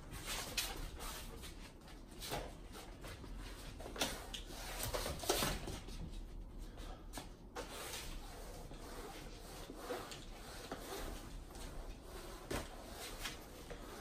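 A floor mop swept and scraped across a hard floor while a dog chases and lunges at it: irregular scuffs, knocks and skittering, with several sharper knocks scattered through.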